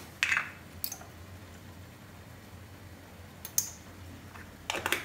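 A few scattered light clicks and taps from a spice container being handled as ground pepper is sprinkled over minced chicken, with a quick cluster of clicks near the end, over a low steady hum.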